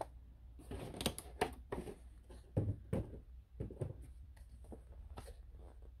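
Handling noises on a tabletop: a series of light knocks and rustles as a cardboard kit box and its contents are moved about, a few sharper knocks in the middle.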